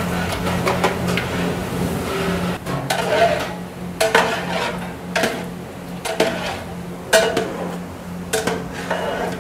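Long metal ladle stirring raw mutton pieces into masala in a large aluminium pot, scraping and knocking against the pot's side about once a second. A steady low hum runs underneath.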